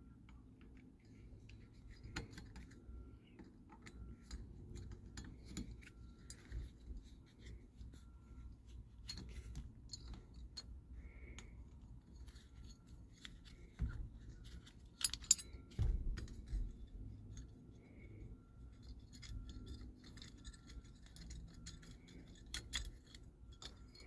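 Small hand Torx driver turning loose Torx screws out of a steering wheel's horn ring: quiet, scattered metal clicks and scrapes, with a couple of dull knocks about two thirds of the way through.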